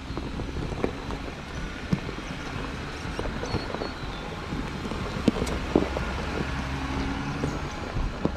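Jeep Gladiator Rubicon pickup engine running at low revs as it crawls over a rocky track, with stones clicking and knocking under the tyres now and then.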